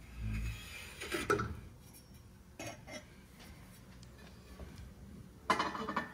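A dull thump, then sharp metal clinks and a louder rattle near the end, as the input shaft and rubber-coupler assembly of a Corvette torque tube is worked out of the tube.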